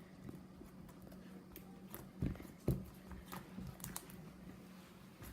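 Slime being squished and poked by hand, making soft sticky clicks and small pops, two louder ones a little past two seconds in.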